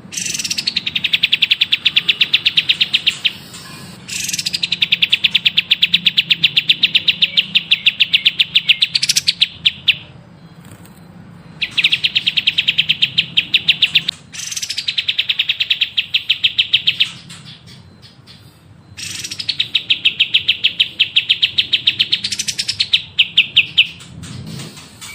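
A songbird singing long, rapid, even trills, each opening with a high falling note, in about five bouts of two to five seconds with short pauses between. It is a bird-song tutoring recording of the kind played to train caged songbirds.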